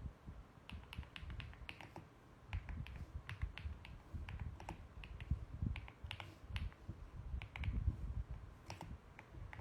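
Typing on a mechanical keyboard: an irregular, rapid run of key clicks, with dull low thuds under the keystrokes.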